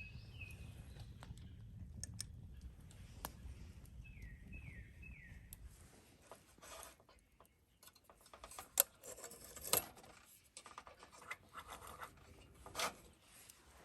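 Faint scattered scratches and clicks of something being handled, getting busier in the second half. A small bird gives a few short falling chirps near the start and again a few seconds later.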